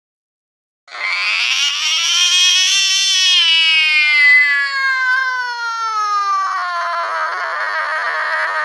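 Angry cat giving one long, drawn-out yowl that starts about a second in, rises a little, then slowly falls in pitch and turns rough and raspy in its later part.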